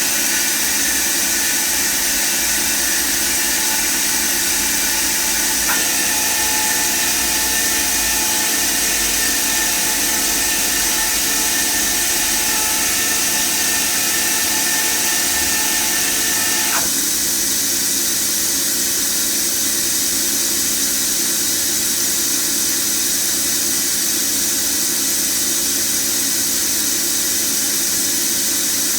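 FANUC Robodrill α-T21iFLa 30-taper vertical machining center running with a steady mechanical noise. About six seconds in, an added whine joins it and cuts off sharply about eleven seconds later.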